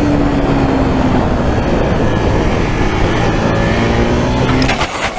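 Sport motorcycle engine running under way, heard through heavy wind rush on a helmet-mounted microphone. The engine note eases slightly in the first second, then climbs slowly as the bike accelerates, and drops away near the end with a few sharp clicks.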